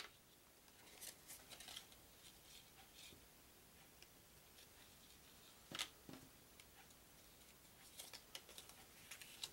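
Thin cardboard trivia cards handled over a wooden table: faint scattered rustles and taps, with a sharp tap at the very start, a louder one a little past halfway, and a run of small clicks near the end.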